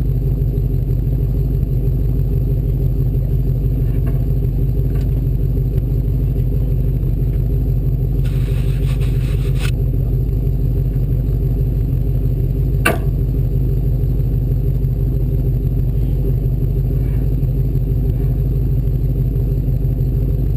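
Race Bronco's engine running at a steady drone, with a brief hiss about eight seconds in and one sharp knock near the thirteen-second mark.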